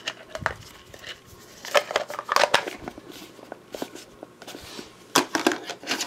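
Plastic dishes of a Light My Fire camp meal kit clicking and clattering as they are handled and nested together, in short clusters about two seconds in and again near the end.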